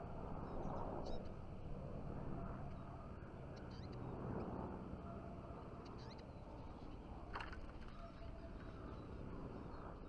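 Low, swelling wind rush on the microphone, with a few short, faint high calls of Eurasian siskins and a sharper sound about seven seconds in.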